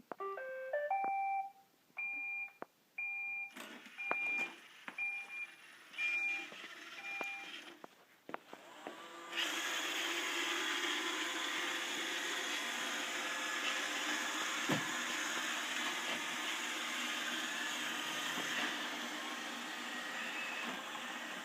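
Roomba robot vacuum starting up: a short rising electronic tune, then a series of evenly spaced two-note beeps for several seconds. After a click about eight seconds in, its vacuum motor and brushes start and run steadily.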